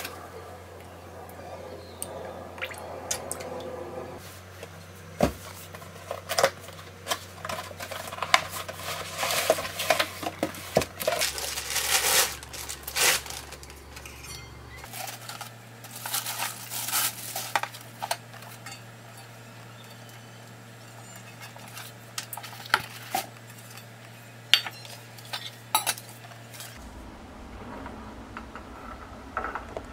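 Stainless steel pot and lid being handled: scattered metal clinks and knocks, with a busier stretch of rustling and clattering in the middle.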